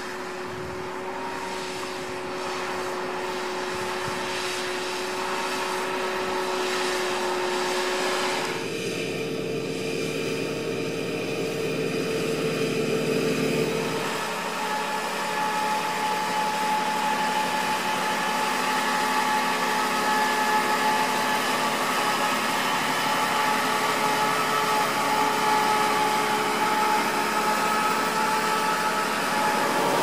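John Deere 7260R tractor's six-cylinder diesel engine running steadily under load while pulling a seven-furrow plough through the soil. The engine note jumps to a different pitch about 8 seconds in and again about 14 seconds in.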